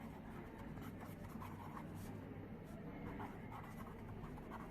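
Faint, irregular scratching of handwriting, over a low steady hum.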